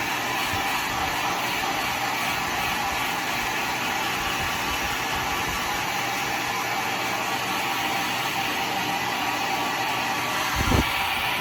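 Handheld hair dryer blowing steadily while drying a damp wig, with a brief low bump near the end.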